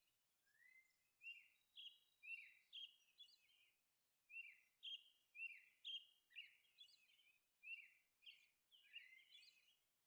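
Faint bird chirps: a run of short, high calls, most dropping in pitch, coming every half second or so with brief pauses.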